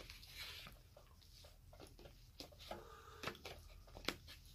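Faint eating sounds: a metal fork clicking and scraping against a plastic takeout container as it twirls noodles, with a few sharp clicks, the loudest a little past three seconds and about four seconds in.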